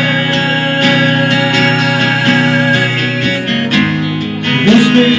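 Live acoustic guitar strummed through a PA, playing a slow chord passage between the sung lines of a ballad.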